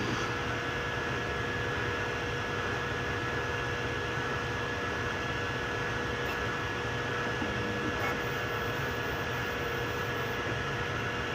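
3D printer running mid-print: a steady fan hiss with a constant whine held at two pitches.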